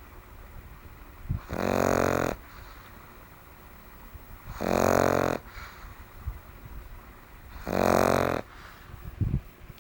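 A sleeping pug snoring: three loud snores about three seconds apart, each just under a second long, with a couple of brief snuffles between them.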